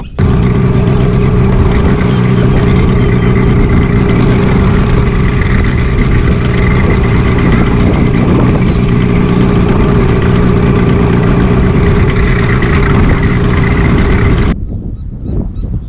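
Boat's outboard motor running steadily at speed, a loud even drone with several steady tones; it cuts off abruptly near the end.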